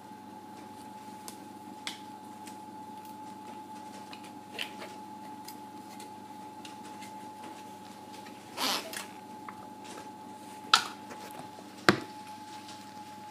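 Scattered small clicks and a short rustle, then two sharp knocks about a second apart near the end, over a steady hum.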